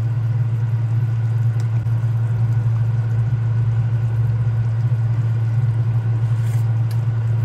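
A steady, loud low hum from a running kitchen appliance, with a pot of stew boiling hard underneath it.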